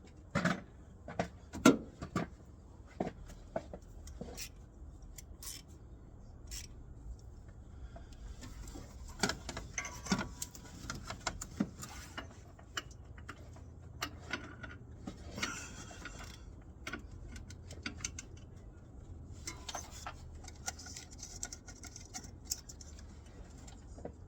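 Hand tools and metal engine parts clinking, knocking and scraping at irregular intervals while the distributor of a Ford 302 V8 is worked on under the hood. A quick cluster of sharp clicks comes at the start, with scattered knocks and scraping later.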